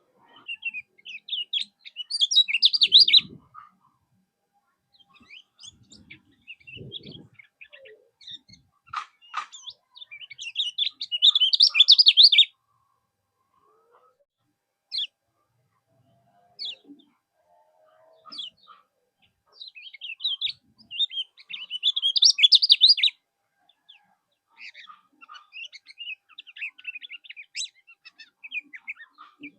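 A kecial kuning songbird singing rapid, twittering chirps in bursts of a few seconds, three times, with scattered single high notes in the gaps.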